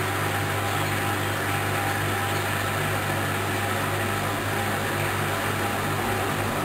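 Hoover washing machine's motor and drum running steadily in an intermediate spin, a constant whir over a low hum.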